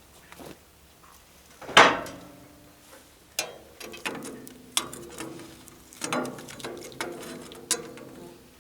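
Steel parts clanking and rattling: about seven sharp metallic knocks, each ringing briefly, the loudest about two seconds in.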